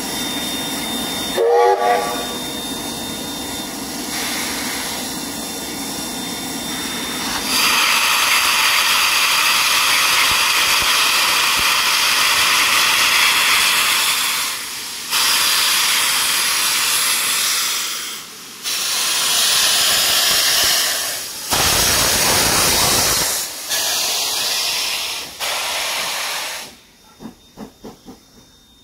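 NZR JA-class 4-8-2 steam locomotive starting its train: a brief whistle toot, then loud steam hissing from the open cylinder drain cocks in long blasts with short breaks between them. Near the end it gives way to a few quicker, fading exhaust beats as the engine draws away.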